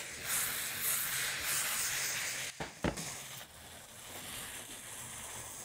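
King trumpet mushrooms sizzling as they brown in hot olive oil in a stainless steel frying pan. There is a click about halfway through, after which the sizzle is quieter.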